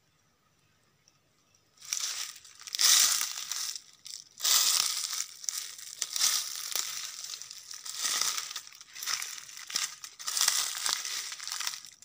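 Footsteps crunching through dry leaf litter, roughly a crunch a second. They start about two seconds in, after near silence.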